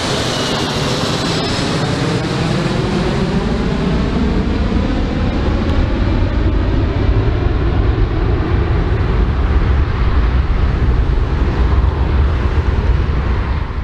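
Four-engine jet airliner flying away overhead: steady jet engine noise with a whine that falls in pitch over the first couple of seconds, while the low rumble grows louder, then cuts off suddenly at the end.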